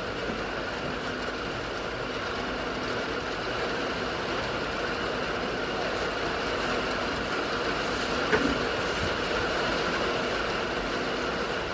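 Steady rain on the barn roof, an even hiss with a faint hum in it, and one sharp click about eight seconds in.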